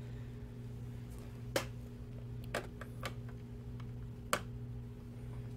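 Four sharp, separate clicks and taps over a steady low hum, as a Shimano TranX 300A baitcasting reel is handled and set down on a plastic kitchen scale.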